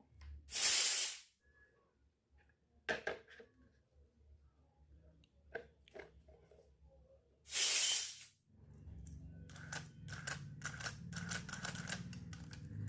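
Miniature toy kitchenware and its packaging being handled. There are two short rustling hisses with scattered clicks between them, then near the end a quick run of small clicks and clinks over a low hum.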